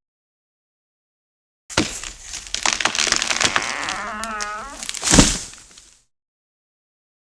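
A tree falling: after about two seconds of silence, wood cracks and splinters with a wavering creak for about three seconds. Then comes one loud crash about five seconds in, which dies away within a second.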